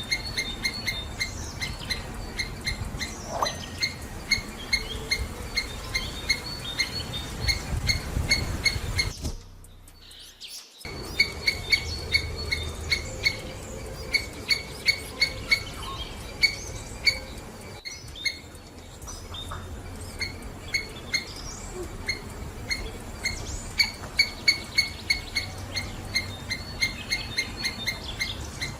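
Squirrel chirping: short, high calls repeated a few times a second in long runs, with a brief gap about ten seconds in.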